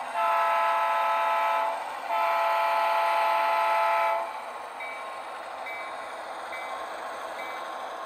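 Sound decoder in an HO-scale Southern Pacific GP38-2 diesel model sounding two long horn blasts, the railroad signal to proceed. After the horn, its diesel engine sound runs on more quietly with a faint ping repeating about once a second.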